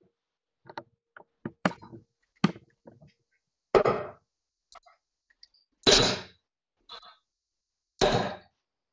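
Three loud, dull thuds about two seconds apart, after a few lighter clicks: steel-tip darts striking a bristle dartboard.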